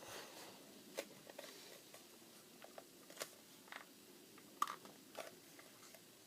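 Faint clicks and crackles of a nearly empty plastic glue bottle being squeezed and handled as the last of the glue is forced out, with a few sharper ticks scattered through.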